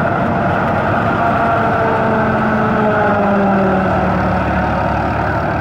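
New Holland Ghazi diesel tractor running under load, driving a PTO-powered corn silage cutter and blower as stalks are fed in, in one loud, steady mechanical din. The engine note dips slightly about halfway through as the cutter takes the load.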